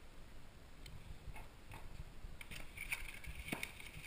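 Cardboard box and plastic packaging being handled: scattered light clicks and rustles, turning into denser crackling about halfway through.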